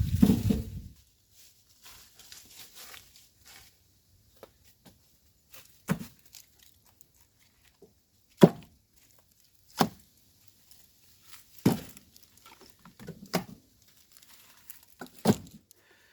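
Split oak firewood being stacked: about six sharp wooden knocks a second or two apart as pieces drop onto the stack, with faint rustling between. A low rumble fades out in the first second.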